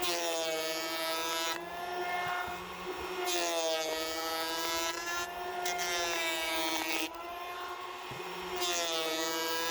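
Ryobi 18-volt cordless planer running. Its motor whine drops in pitch with a loud hiss each time the blades cut into the rough-sawn cedar, then rises again as it runs free. There are three cuts: at the start, about three seconds in, and near the end.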